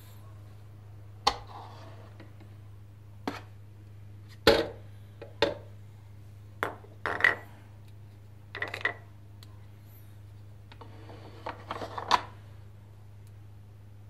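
Hard plastic parts and a ceramic mug being handled on a Dolce Gusto capsule coffee machine: a string of sharp, irregular clicks and knocks, a few of them ringing briefly like a mug clinking.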